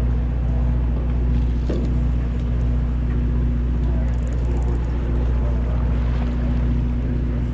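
Party fishing boat's engine running steadily, a constant low drone.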